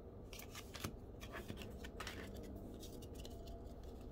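2020 Donruss football trading cards being slid off one another by hand as the stack is flipped through: an irregular run of faint, short flicks and scrapes of card stock rubbing on card stock.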